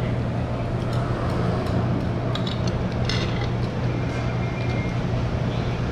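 A steady low hum of background noise, with a few light clinks of chopsticks and spoons against noodle bowls.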